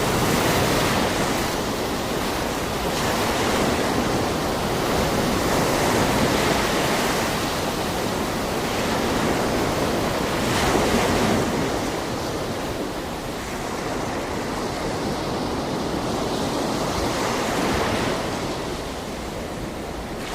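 Sea waves breaking and washing in, a continuous hiss of surf that swells and eases every few seconds.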